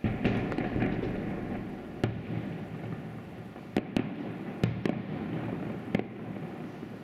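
Fireworks display: aerial shells bursting. It opens with a sudden loud volley and crackling, then about six sharp bangs, with a rolling rumble of echo between them.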